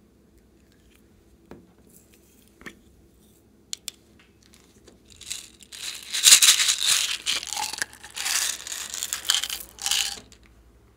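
A few faint handling clicks, then about five seconds of loud crinkling and rattling as a plastic bag of gold plastic pearl beads is shaken out into a glass bowl of slime.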